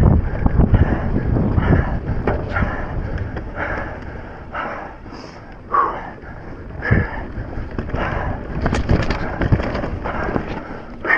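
A mountain biker's heavy, hard breathing, panting about once a second from the effort of pedalling, over a low rumble of trail and wind noise that eases off in the middle and builds again.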